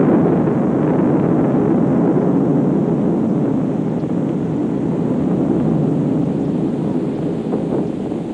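Low, steady roar of an F-15 fighter jet's crash fireball as the fuel of the fully fuelled aircraft ignites, slowly fading.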